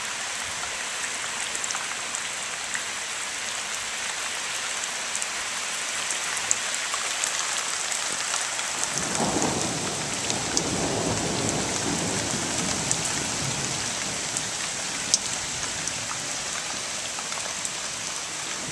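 Heavy rain falling steadily, with scattered sharp hits of single drops. About nine seconds in, a roll of thunder rumbles in and fades away over several seconds.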